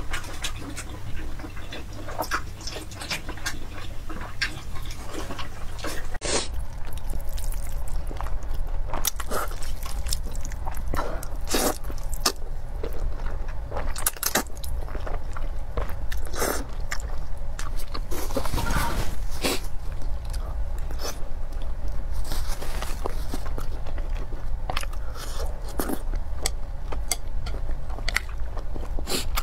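Close-miked eating: a person chewing and biting pork and noodles, with many sharp, wet mouth clicks. A short dropout about six seconds in.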